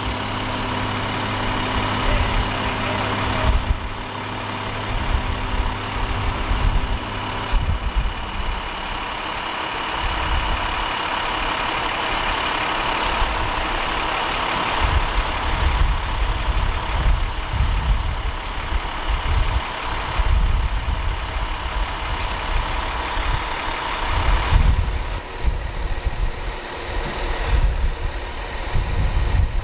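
Fire trucks' diesel engines running steadily. The drone holds a clear even pitch for the first several seconds, then turns rougher and noisier, with uneven low rumbling throughout.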